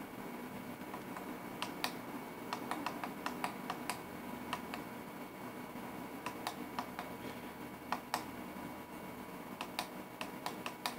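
Small plastic menu buttons on a Feelworld 3.5-inch electronic viewfinder being pressed repeatedly, giving irregular light clicks a few per second as a menu setting is stepped up.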